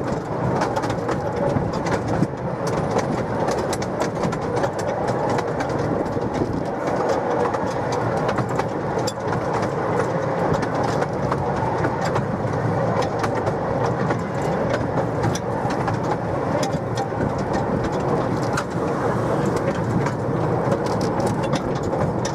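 Miniature railway train running along the track: a steady rumble with frequent sharp clicks throughout.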